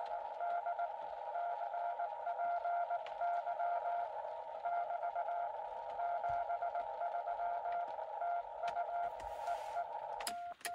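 Morse code (CW) heard through the Xiegu X6100 transceiver's receiver audio: a steady-pitched beep keyed in dots and dashes over a narrow band of receiver hiss. About ten seconds in, the hiss cuts off.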